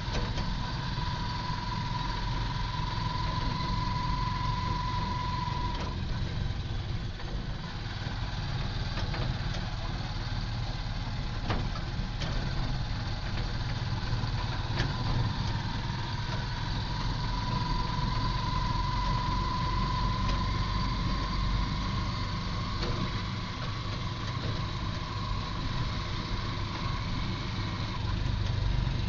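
A vehicle driving, heard from inside the cabin: a steady low engine and road rumble. A thin steady high whine fades out about six seconds in and comes back after about seventeen seconds.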